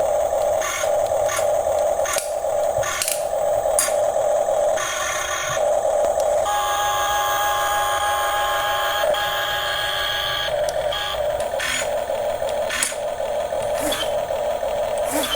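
Small electric gear motors of a radio-controlled Huina construction model running with a buzzing drone that comes in pulses, with sharp clicks. Partway through there is a steadier, higher whine.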